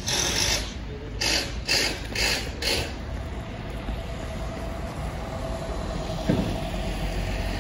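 Street sound while walking on a wet pavement: a rhythmic clatter about twice a second for the first three seconds, then steady traffic noise with a faint engine hum.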